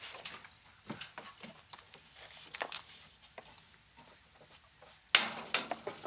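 Footsteps of heeled shoes clicking irregularly on brick paving, followed about five seconds in by a louder, short rushing noise.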